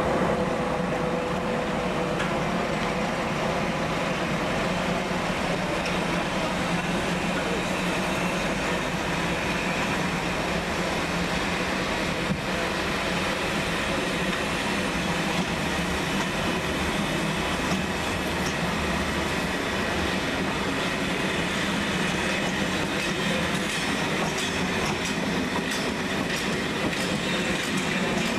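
A train running on the rails with a steady rolling noise and faint clicks of the wheels over the rail joints.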